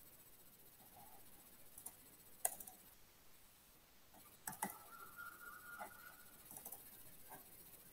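Faint, scattered clicks and taps over a steady hiss from an open microphone on an online call, the sharpest click about two and a half seconds in, with a faint steady tone lasting about a second midway.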